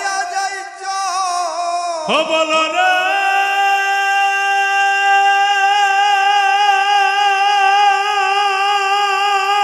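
Male kirtan singer's voice through a microphone: a short ornamented phrase, then, about two seconds in, a quick slide up into one long held note that wavers slightly near the end.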